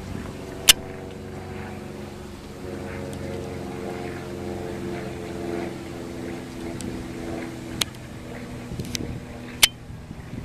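An engine running steadily, its pitch drifting a little and swelling in the middle, with a few sharp clicks.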